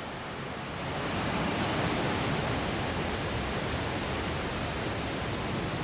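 Falcon 9 rocket's nine first-stage Merlin engines at full thrust during liftoff: a dense, steady rushing noise that swells about a second in.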